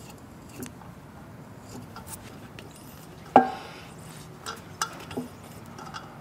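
Scattered light metal clicks and clinks as a thread tap is turned by hand into a drilled bolt hole in an aluminum intake manifold, with one louder, briefly ringing clink about three and a half seconds in.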